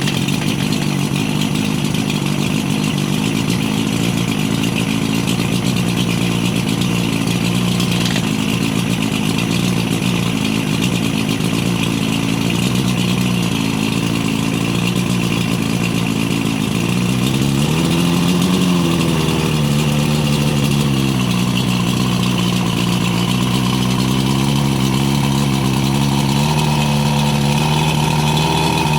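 OMC 140 hp Sea Drive two-stroke outboard engine running steadily, briefly revved up and back down a little after halfway through, with smaller rises and falls in speed later on.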